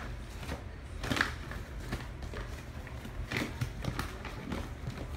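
Dry dog food being scooped: scattered short scrapes and rattling taps, the loudest about a second in, over a steady low hum.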